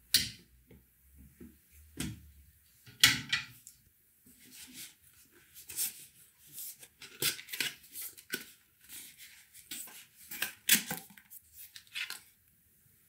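A few sharp light knocks as barista tools are handled, then rapid scraping and rustling of a black cardboard box being turned over and its flap opened.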